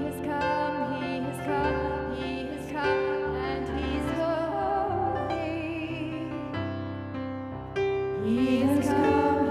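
Slow, gentle music: a sung melody over sustained keyboard chords and a steady bass line.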